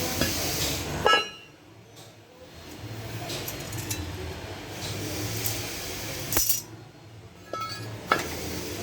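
A steady hiss that cuts off with a sharp click about a second in, then scattered metallic clinks and taps of turbocharger parts being handled.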